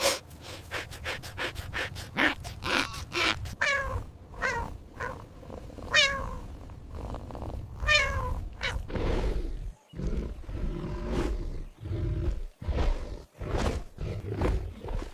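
Real animal calls: a run of pitched calls, several of them sliding down in pitch, then lower, rougher calls in the second half.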